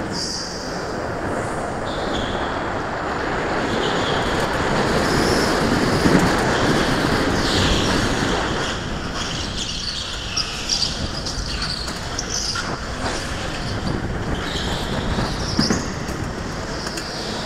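Go-kart driven at racing speed round an indoor concrete track: steady motor and running noise, with short high-pitched tyre squeals in the corners.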